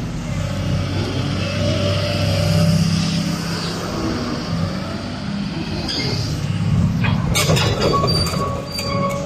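Hyundai R220LC-9S crawler excavator's diesel engine running with a steady low hum while the machine slews and moves. From about seven seconds in, clattering and high squealing tones come in as its steel tracks turn on the concrete.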